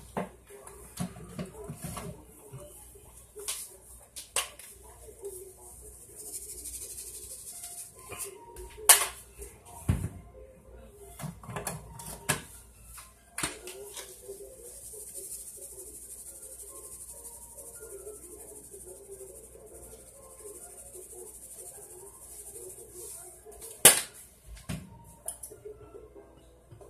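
Block of ground beef frying in a cast-iron skillet: a steady high sizzle that grows as the fat starts to bubble. Sharp clicks and knocks come now and then, the loudest about nine seconds in and again near the end.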